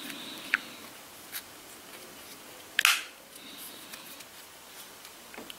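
Small clicks of a Magpul AFG-1 polymer foregrip being handled and its parts pressed together, with a sharper plastic snap just under three seconds in.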